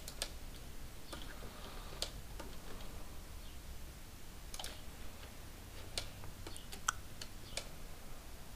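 Scattered sharp clicks of a computer mouse and keyboard, about eight spread irregularly, over a faint low steady hum.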